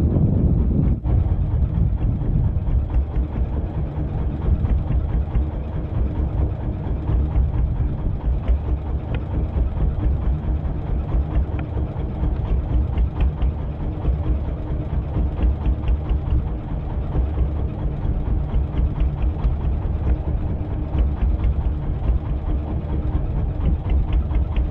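Fishing boat engine idling, a steady low throb with quick, even pulses.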